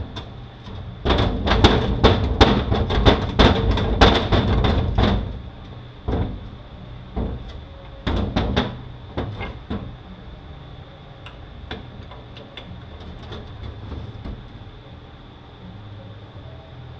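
Sharp knocking and clatter from parts of a Mazda six-speed manual transmission being worked on a bench to free a stuck part: a quick run of knocks for about four seconds, then a few scattered single knocks and light taps.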